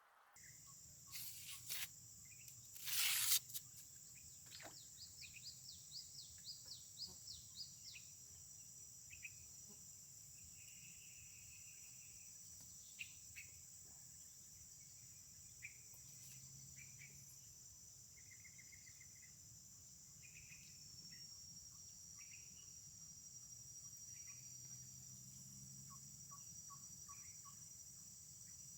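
Insects trilling steadily at a high pitch, with scattered bird chirps, including a quick run of rising chirps a few seconds in. A short, loud, rustling burst sounds about three seconds in.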